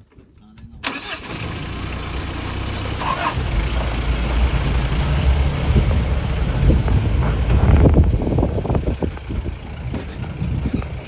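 Safari jeep's engine running as the vehicle drives, with a heavy low rumble of engine and road noise. It comes in suddenly about a second in, after a moment of near quiet.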